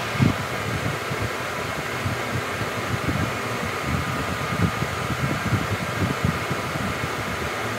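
Steady mechanical whirring hiss with faint steady tones in it, and irregular low rumbles underneath.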